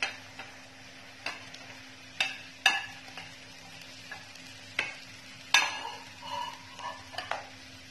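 Orange peels being tipped off a ceramic plate into a pan of water just coming to the boil: a run of sharp clinks and knocks of plate and peels against the pan, over a steady hiss from the heating pan.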